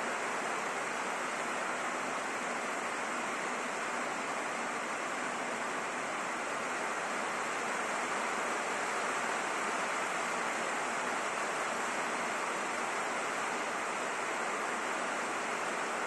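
Steady rain hitting a roof, an even hiss with no single drops standing out.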